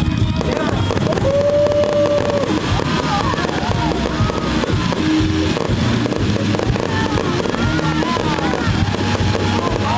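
Fireworks display going off continuously, dense crackling and bangs mixed with loud music.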